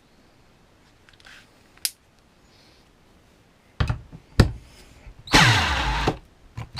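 Parkside PBSA 12 D4 12 V cordless drill driving a long 125 mm wood screw: two short bursts of the motor, then a longer run whose pitch falls as the motor slows under the load, a screw too big for this small drill.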